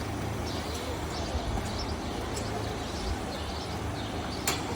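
Steady low hum over a background haze, with a few faint bird chirps in the first couple of seconds and one sharp click near the end.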